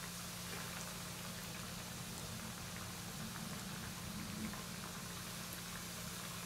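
Hot oil sizzling with small, scattered crackles as flour-coated jackfruit pieces shallow fry in a pan, over a steady low hum.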